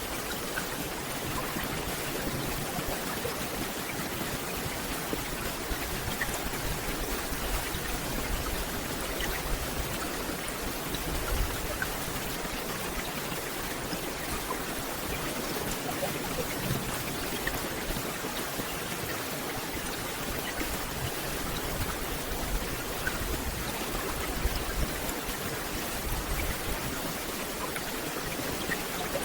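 Steady rain falling on forest foliage: an even, dense hiss with many small scattered drop ticks.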